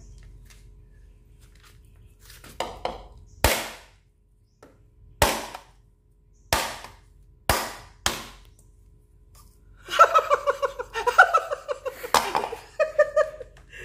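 Bolo knife chopping the fibrous husk off a coconut held in the hand: about six sharp chops, roughly a second apart, each blow splitting off a piece of husk.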